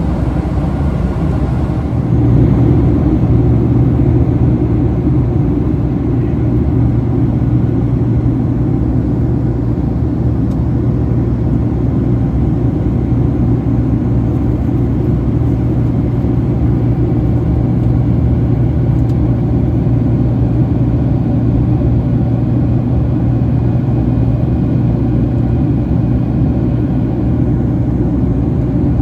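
Steady cabin drone inside a Boeing 767-300 in flight: General Electric CF6 engines and airflow, heaviest in a low hum. It gets a little louder about two seconds in and then holds steady.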